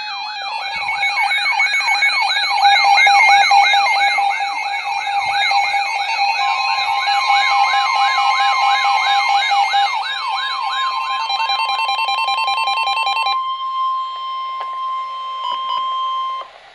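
Electronic siren-style alert alarm, its pitch sweeping up and down about twice a second, stopping about twelve seconds in. From about six seconds in, the steady 1050 Hz NOAA Weather Radio warning alarm tone sounds with it and holds until just before the end, signalling the warning message that follows.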